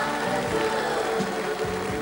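A large Māori group singing together in Māori, many voices holding sustained notes.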